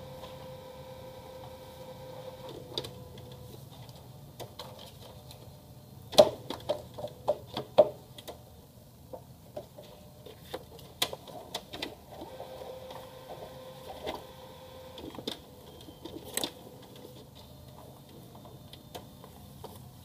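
HP LaserJet CP1025 color laser printer's mechanism running: a steady motor whine near the start and again around two-thirds of the way in. A quick run of sharp clicks and knocks comes about six to eight seconds in, the loudest sound here, with scattered single clicks later.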